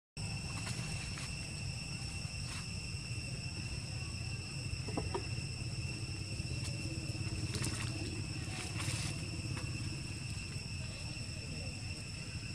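Insects droning steadily on one high pitch over a low rumble, with a few faint clicks.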